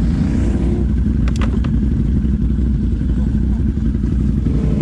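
Can-Am ATV engine idling steadily, with a few sharp clicks of clatter about a second and a half in.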